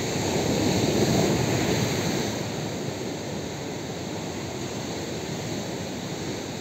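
Surf on a sandy beach: a wave breaks, loudest in the first couple of seconds, then a steady wash.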